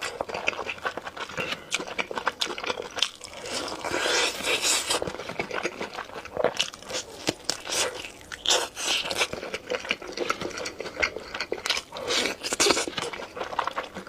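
Close-up eating sounds: repeated crisp, crunching bites and chewing of crunchy food.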